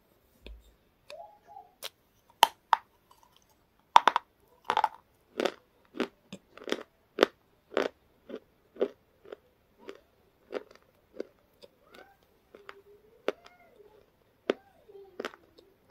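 Close-up crunching and chewing of crisp, flaky chips with the mouth closed. The crunches come in a quick run of about two a second, loudest from about four to eight seconds in, then thin out.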